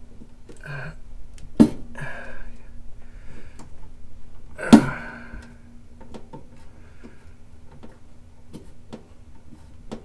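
Two sharp metallic clicks, about three seconds apart, of a screwdriver working the flame sensor's mounting screw inside a gas furnace's burner compartment, over a faint steady hum.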